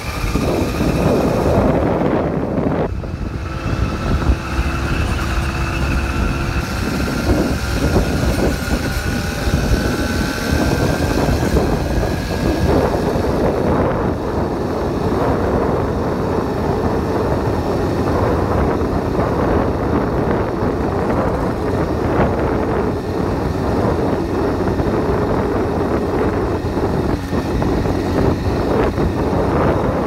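An 80cc bike's small engine running while under way. Its pitch rises slowly over the first dozen seconds as it gathers speed, then holds steady, with wind rumble on the microphone.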